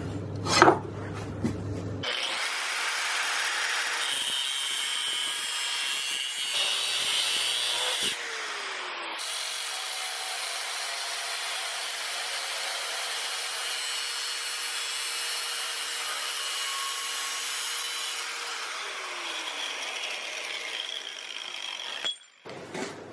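Electric grinder grinding steel: a steady rasping hiss with a faint motor whine. It starts about two seconds in and cuts off abruptly shortly before the end.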